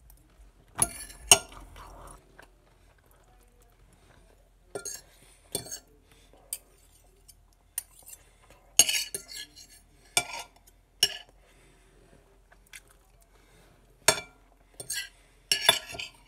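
Metal fork clinking and scraping against a dish at irregular intervals while eating, with chewing in between.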